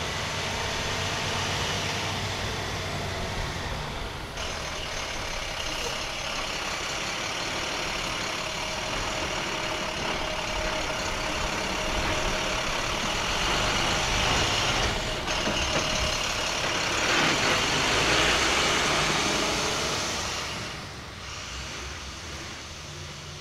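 Dump truck driving on a gravel road, its engine and tyres growing louder as it comes close and passes, then fading off sharply a few seconds before the end.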